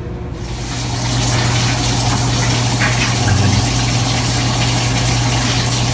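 Shower water spraying: a steady hiss that comes on and builds about half a second in, over a steady low hum.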